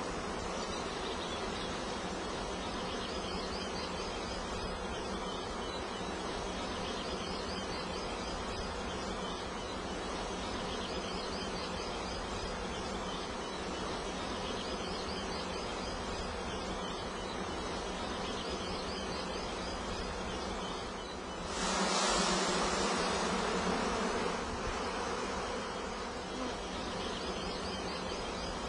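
Honeybees buzzing in a steady hum around an open hive, with a louder rushing noise for two or three seconds about three-quarters of the way through.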